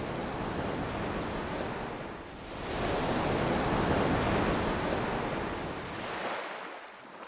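Sea waves breaking on a rocky shore: a steady rush of surf that swells to its loudest about three to five seconds in, then eases off.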